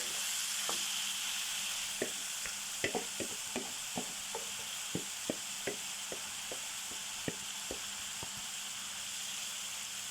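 Marinated liver sizzling steadily as it fries in a pan, while a utensil stirs it and taps against the pan in irregular clicks, most of them in the first half.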